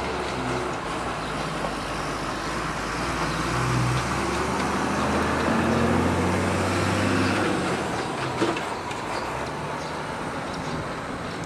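Diesel locomotive of a passenger express running past, its engine rumbling under the rolling noise of the train, loudest about halfway through and fading toward the end. A single sharp knock sounds about two-thirds of the way through.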